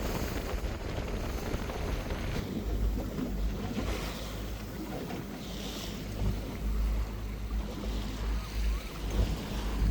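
Wind buffeting the microphone in uneven low gusts, over the steady wash of sea water around a boat.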